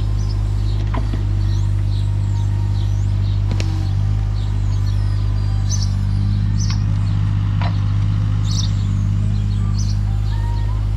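Takeuchi TB216 mini excavator's diesel engine running steadily under work, with a few sharp knocks and birds chirping over it.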